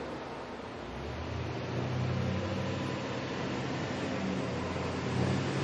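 Passing street traffic, with car engines running by and a low hum that rises and falls.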